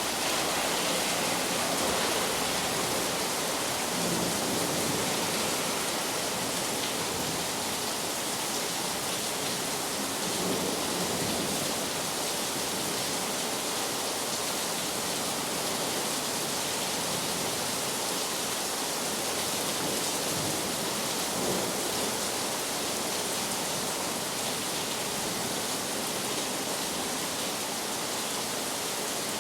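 Heavy rain pouring steadily, with a few low swells of distant thunder rumbling under it.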